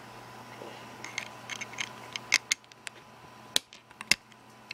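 Small plastic clicks and taps of Lego bricks being handled and pressed onto the build, in quick irregular clusters with a few sharper snaps in the second half.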